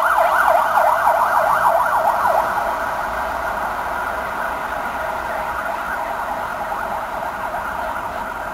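Emergency vehicle siren in a fast yelp, its pitch sweeping up and down about four times a second, fading away about two and a half seconds in. A steady rolling noise from the departing passenger train stays underneath and slowly gets quieter.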